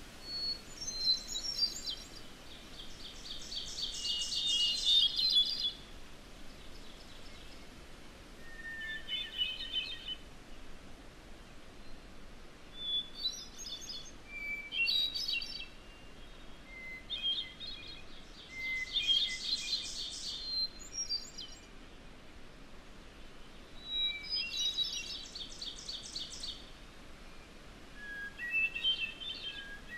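Songbirds singing in a wilderness field recording: a new phrase every few seconds, some fast buzzy trills and some short whistled notes, over a steady faint hiss.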